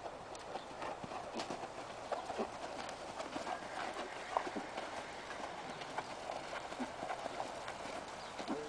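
Percheron draft horse walking in harness: hooves stepping on arena dirt, with irregular clinking from the metal trace chains dragging behind it.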